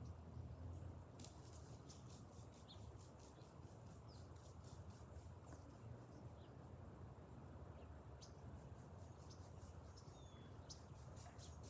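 Near silence: room tone with a steady low hum, faint scattered ticks and a few brief, faint high chirps.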